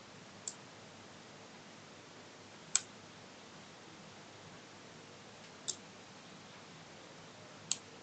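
Small PCB relays on a homemade washing-machine controller board clicking as they switch. There are four sharp clicks about two seconds apart, the second the loudest, over a faint hiss.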